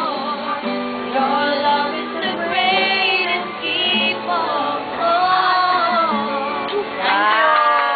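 A group of voices, mostly women's, singing a birthday song with long held notes, ending on a drawn-out final note near the end.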